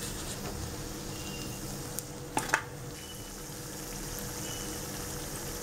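Batter-coated banana slices (pazham pori) deep-frying in hot oil in a kadai, a steady sizzle. A few short knocks come about two seconds in.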